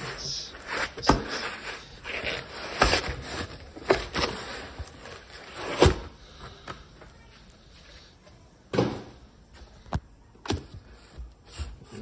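A white foam packing sheet being pulled out of a cardboard box, scraping and rustling against the cardboard with a series of sharp knocks. It quietens about halfway through, leaving a few separate knocks and paper handling.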